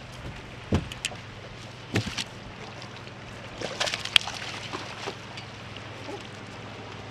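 A hooked fish splashing at the surface beside a boat as it is played and netted, heard as several short splashes and knocks, most around the middle, with one sharp click. A low steady hum runs underneath.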